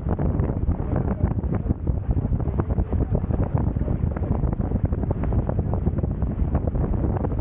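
Steady, heavy wind buffeting the camera's microphone aboard a Hobie Tiger F18 catamaran under sail, with water rushing past the hulls underneath.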